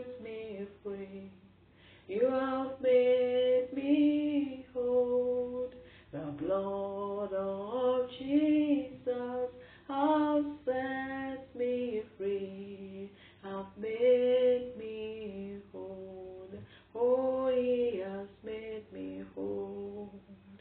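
A woman singing unaccompanied, a slow worship song in long held notes with short breaks between phrases.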